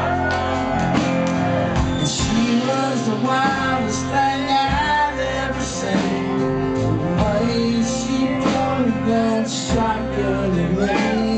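Live rock band playing an instrumental stretch of a country-rock song, guitars over bass and regular drum hits.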